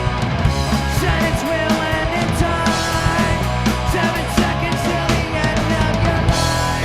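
Rock band playing live with a drum kit, loud punk-rock style music, which gives way to a single loud hit and ringing just before the end.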